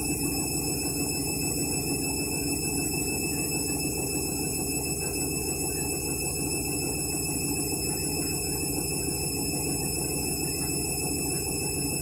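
Candy Smart Touch washing machine on its delicate spin: the drum turning steadily with a constant motor hum.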